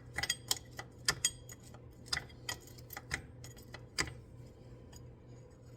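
Light metal clicks and taps, irregularly spaced, from a wrench being worked on a CV axle nut; they die away after about four seconds.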